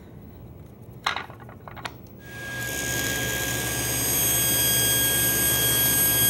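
A few sharp clacks about a second in, then a table saw motor spinning up over a couple of seconds and running at speed with a steady whine and hum.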